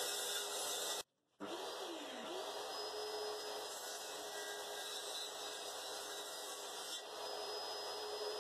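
Bench-mounted circular saw running steadily, its blade cutting notches into a pine 2x3 batten. The sound cuts out completely for a moment about a second in.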